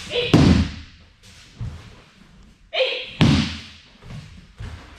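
Two heavy thuds about three seconds apart: bodies slapping down onto tatami mats in aikido breakfalls as the attacker is thrown with kotegaeshi (wrist-turn throw).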